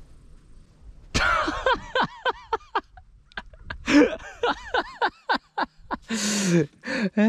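A man laughing in rapid, wordless bursts, each rising and falling in pitch, beginning about a second in, with lower voiced sounds near the end.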